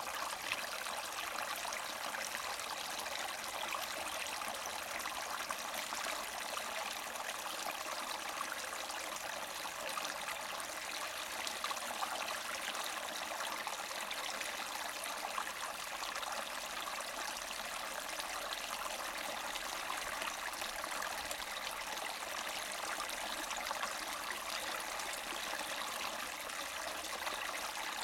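Small spring-fed mountain brook gurgling and splashing steadily over rocks.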